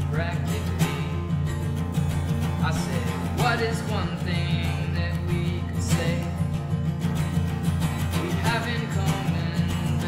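A man singing while strumming an acoustic guitar in a steady rhythm; his sung phrases come and go over the continuous strumming.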